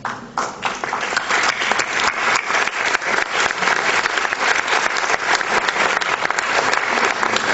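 An audience applauding, many hands clapping together, starting a moment after the invitation to the stage and continuing steadily.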